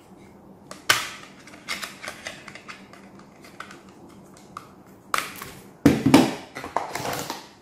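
Hands working the white plastic casing of a mosquito-trap device open: scattered sharp clicks and taps, then a busier run of knocks and clatter on the table in the last two or three seconds.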